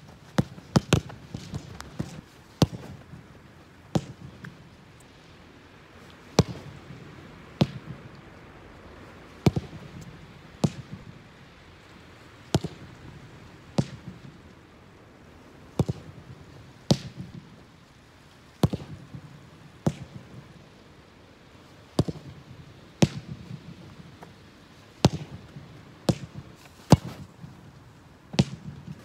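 Soccer ball kicked over and over at a rebound kick wall: sharp thuds of boot on ball and ball striking the wall, every second or two, often two about a second apart.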